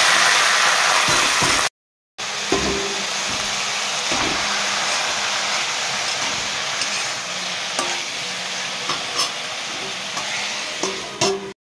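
Chopped bathua greens and flat beans hitting very hot oil in a kadai and sizzling loudly, then frying with a steady sizzle while a metal spatula stirs and scrapes with small clicks. The sizzle breaks off briefly about two seconds in.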